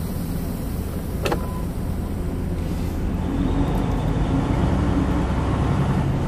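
Semi-truck's diesel engine running, heard from inside the cab as the truck pulls away, its drone rising slightly and growing louder after about three seconds. A short click about a second in.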